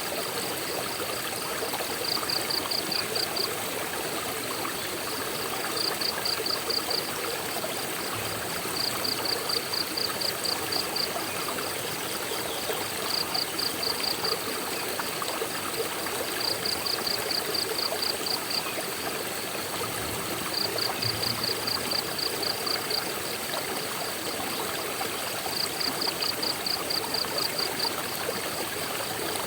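Steady rushing water of a waterfall. Over it, an insect gives a high, fast pulsed trill in bouts of one to two seconds, repeated every few seconds.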